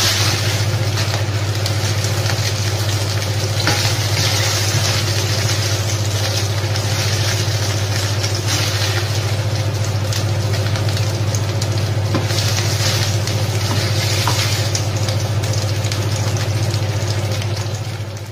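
Pork slices and a splash of wine sizzling in a frying pan while being stirred with a wooden spoon, with a steady low hum underneath.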